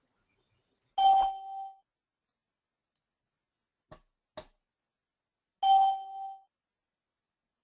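An electronic notification chime of the web-meeting software sounds twice, about four and a half seconds apart, each a short ding that fades quickly. Two faint clicks come between the chimes.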